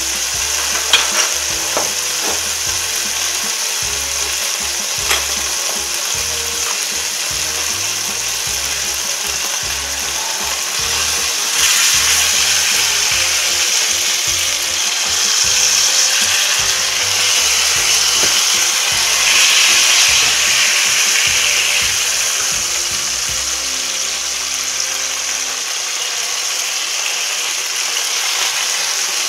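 A piece of veal tafelspitz frying in hot fat in a pan, sizzling steadily, with a few sharp clicks in the first five seconds. The sizzle grows louder from about twelve seconds in, while the meat is lifted and turned with tongs.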